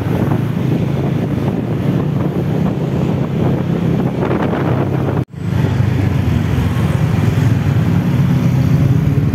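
Motorcycle engine running steadily while riding in traffic, with wind buffeting the microphone. The sound drops out briefly about five seconds in.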